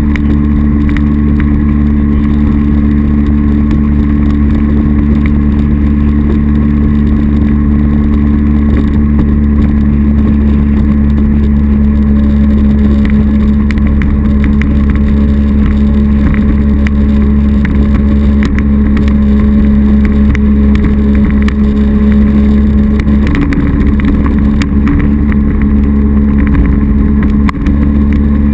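A 2001 North River Sportster jet boat under way, its 240 Sport Jet drive running at a steady drone over the rush of water along the hull. The engine note shifts slightly near the end.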